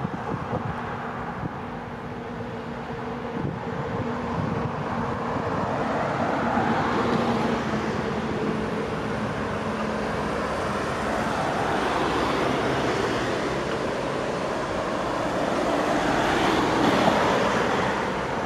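Road traffic: cars driving past, their tyre and engine noise swelling and fading about three times, loudest near the end as a car passes close.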